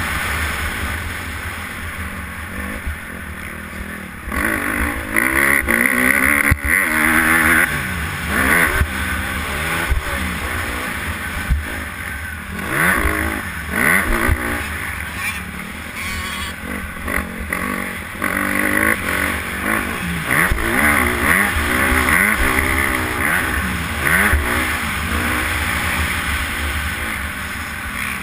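Honda motocross bike's engine, heard from a camera mounted on the bike, revving up and down over and over as the rider accelerates, shifts and rolls off the throttle, with wind buffeting the microphone.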